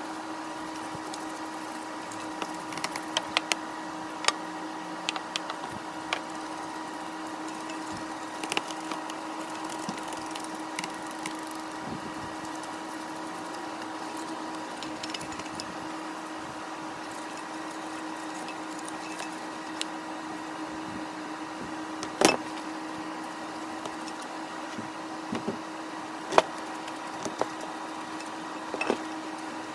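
A steady hum with scattered light clicks and knocks, the sharpest about 22 and 26 seconds in.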